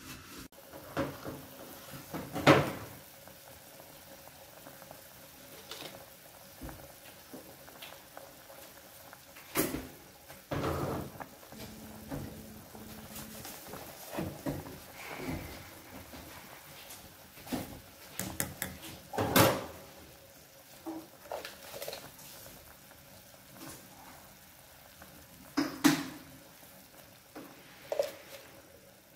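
Braising beef broth bubbling at a boil in a stainless steel pot, with scattered sharp knocks and clatters throughout, a few of them much louder than the rest.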